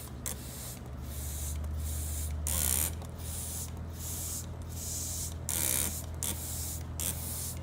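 Hand trigger spray bottle spritzing liquid onto a glass lens in about a dozen quick hissing squirts, one after another with short pauses, two of them louder, around the middle and near the end.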